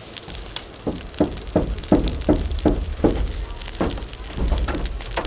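A run of about ten short knocks on a ribbed steel roof panel, about three a second, starting about a second in, over a low rumble of wind on the microphone.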